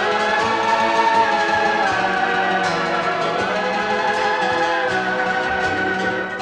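Music from a 1970s country record, an instrumental stretch with full, sustained chords and no lead vocal.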